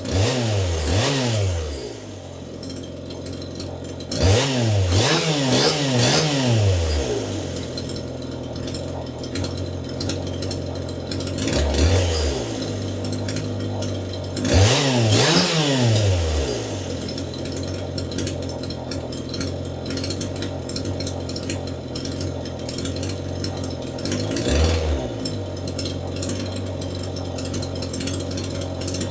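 Two-stroke gas chainsaw running with its chain spinning free and not cutting, idling steadily and revved up and back down several times in short bursts.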